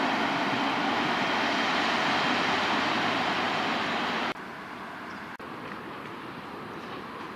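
Electric commuter train running past, a steady loud rush of wheels on rails that cuts off sharply about four seconds in. A quieter steady rail rumble follows as an EP2K electric locomotive approaches.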